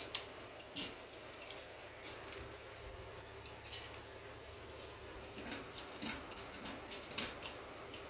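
Ceiling fan pull-chain switch being worked, with its metal bead chain rattling: a string of small, irregular metallic clicks, busier in the second half.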